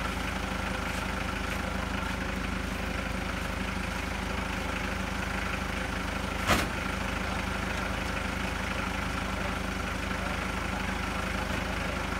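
Toyota forklift's engine idling steadily, with one sharp knock a little over halfway through.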